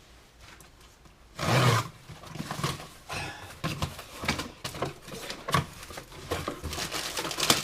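Cardboard parcel packaging being torn open by hand: a loud rip about a second and a half in, then irregular rustling, crinkling and clicking as the packaging is handled.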